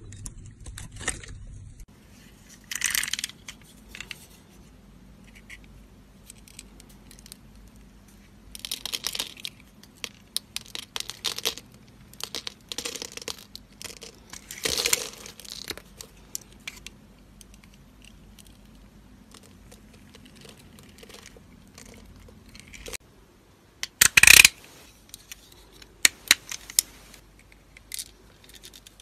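A snap-off utility knife blade cutting and shaving through bars of soap, in separate short crisp scrapes and crunches with pauses between. Small cut pieces of soap crumble off and drop. The loudest cut comes about two-thirds of the way in, and a few small clicks follow it.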